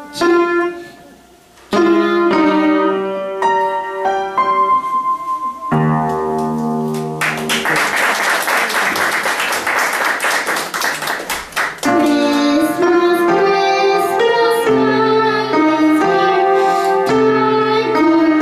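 Upright piano played solo, single notes and chords. There is a brief break about a second in, then a fast flurry of rapid notes for about four seconds in the middle before steadier notes and chords return.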